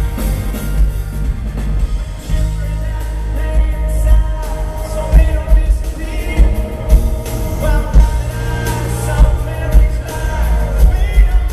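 Live pop-rock band playing, with a male lead singer over drums, bass guitar and electric guitar, and a heavy bass low end. The singing comes through most clearly in the second half.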